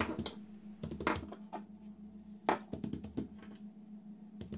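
Hands patting and folding a sheet of buttered msemen dough on a tabletop: a handful of scattered taps and slaps, the sharpest about two and a half seconds in.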